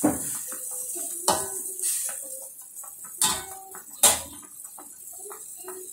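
Metal slotted spatula clanking against an enamelled wok, four sharp knocks, the last and loudest about four seconds in, with small faint ticks between them.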